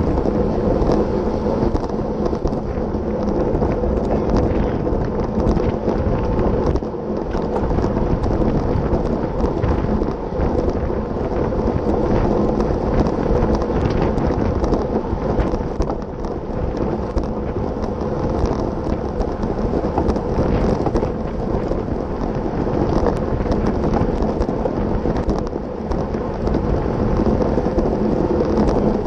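Steady wind rumble buffeting a bike-mounted action camera's microphone while the bicycle is ridden at speed, with a faint steady hum underneath.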